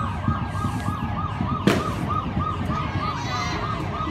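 A siren wailing in a fast yelp, about three rising-and-falling whoops a second, over a low steady noise. A single sharp crack cuts through about 1.7 s in.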